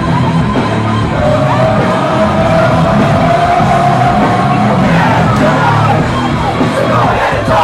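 Loud rock music with a crowd yelling and singing along. A long held note starts about a second in and lasts some three seconds.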